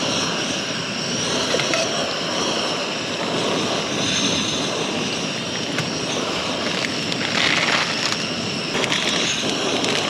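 Portable gas camp stove burning with a steady hiss under a pot of boiling ramen water, with a few small clicks near the end.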